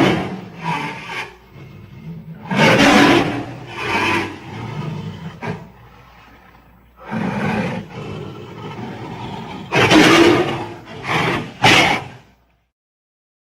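Designed giant-ape roar and grunt sound effects for King Kong. They come as a string of separate bursts of different lengths and end with three short, sharp roars close together.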